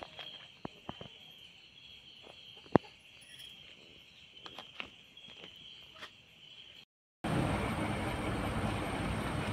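Crickets trilling steadily, with scattered clicks and taps from a mud crab being handled and one sharp click near the middle. After a brief cut to silence about seven seconds in, a loud steady rushing noise takes over.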